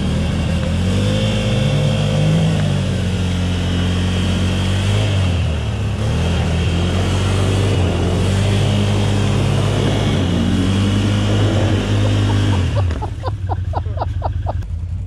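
ATV engine revving, its pitch rising and falling repeatedly, then dropping off about two seconds before the end.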